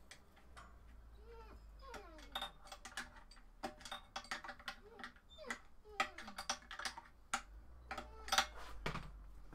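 Irregular small clicks and taps as the compressor's start capacitor, its bolt and wiring are handled and fitted by hand. A cat meows several times, each call rising and then falling in pitch.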